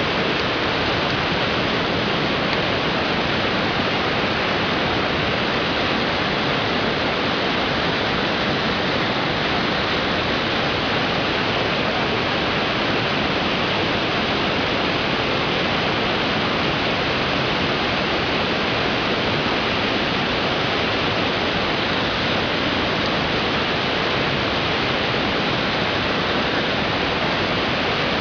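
Steady rush of fast-flowing water, an even, unbroken noise that holds the same level throughout.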